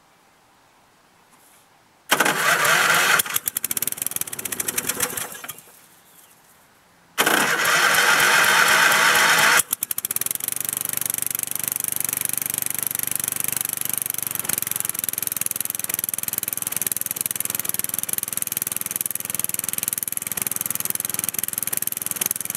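Lawn Chief riding mower's 11 hp Briggs & Stratton flathead engine being cold-started: the starter, jumped directly because the solenoid failed, cranks in two bursts, about two and seven seconds in, and on the second try the engine fires about ten seconds in and keeps running. It runs steadily but not running the greatest.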